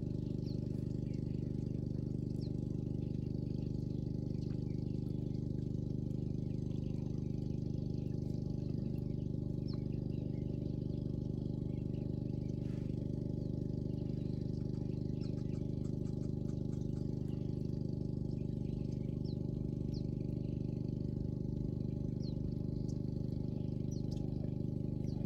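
A steady low motor hum with a constant pitch throughout, with scattered short, high bird chirps over it.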